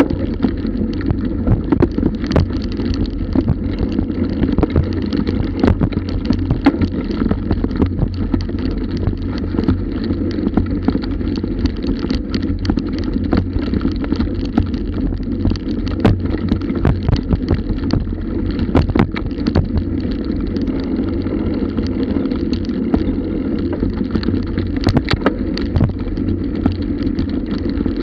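Bike rolling fast over a rough dirt trail behind a pulling dog: a steady low rumble of tyres and wind on the camera microphone, with frequent rattles and knocks as it goes over bumps.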